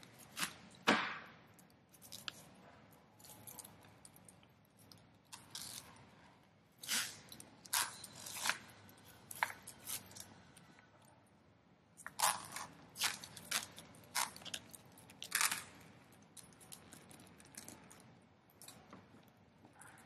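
Protective wrapping being pulled off a new handbag's gold chain strap: scattered crinkles, rips and rustles in two busier spells, with the metal chain clinking now and then.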